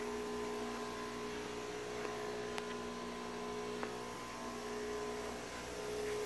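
Laser cutting machine humming steadily, a few constant tones over a low whir, with a couple of faint clicks in the middle.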